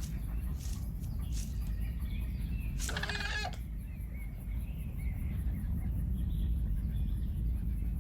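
A single short pitched animal-like call from a dinosaur in an animated film's sound design, about three seconds in, lasting under a second. Beneath it runs a steady low rumble of soundtrack ambience, with faint small calls later on.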